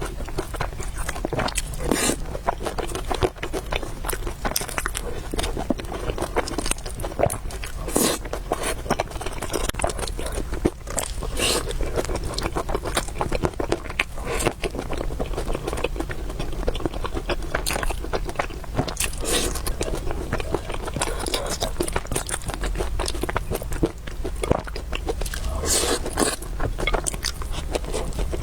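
A person chewing and biting food close to the microphone, with frequent irregular smacking clicks and occasional crunches.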